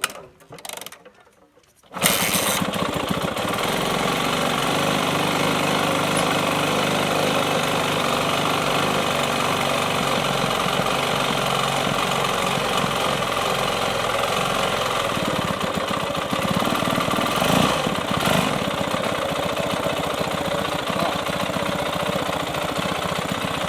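Yamaha YZ250F four-stroke single-cylinder dirt bike engine catching about two seconds in and then running steadily through a Yoshimura exhaust with Power Bomb header, on a cold start with the choke on. The revs rise briefly a little past the middle.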